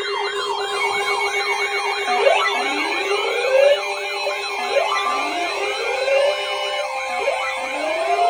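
Several electronic sirens sounding at once: a fast yelp warbling about three times a second, joined about two seconds in by overlapping rising whoops that repeat a little more than once a second.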